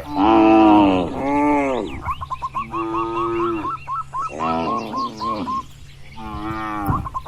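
Cattle mooing in turn, about five long moos, the first few running into each other and the later ones spaced a second or so apart. A quick run of short, high chirps carries on between the moos.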